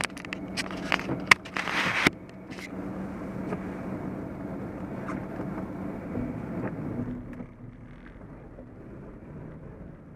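Car engine and road noise heard from inside the cabin while driving, a steady hum with a low drone. A few sharp clicks and knocks come in the first two seconds, and the sound grows quieter after about seven and a half seconds.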